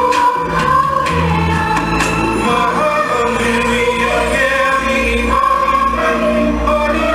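Recorded dance music with several voices singing together over a steady bass line.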